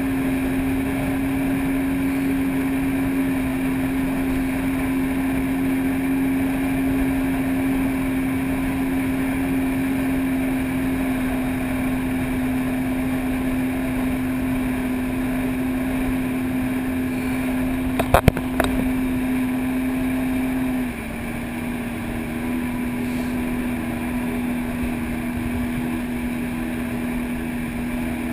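Personal watercraft engine running steadily at cruising speed, a continuous drone. About three quarters of the way through, the engine note steps down a little and gets quieter; shortly before that, a brief cluster of sharp clicks.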